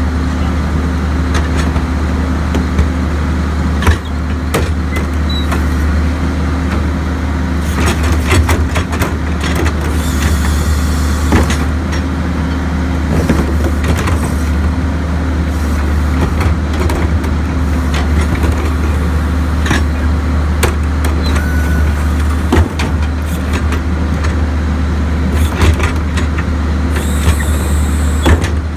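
Crane Carrier garbage truck's diesel engine running steadily behind its Leach rear-loader packer body. Irregular clanks and bangs come from the cart tippers lifting and dumping plastic wheeled carts into the hopper. There are two short hisses, about ten seconds in and near the end.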